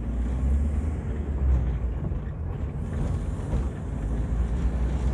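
Steady low rumble of a small manual-transmission car's engine and tyres, heard inside the cabin while it rolls slowly forward in first gear.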